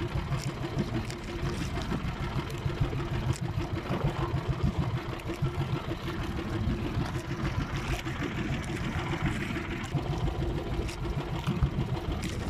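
Small boat engine running steadily, a low rumble with a constant hum.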